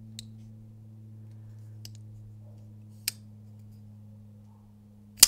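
Divo Stout folding knife's blade being flicked open and shut against its stiff detent: four light, sharp clicks a second or so apart, the last one near the end a loud snap as the blade flips open.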